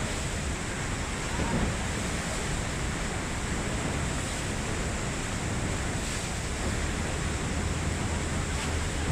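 The Rhine Falls: a large waterfall's water plunging and crashing as a dense, steady rush of noise.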